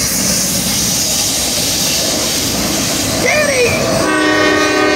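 Freight train's autorack cars rolling through a grade crossing, a steady rushing rumble. About three seconds in come a few short rising-and-falling squeals, and near the end a steady chord of several high tones sets in.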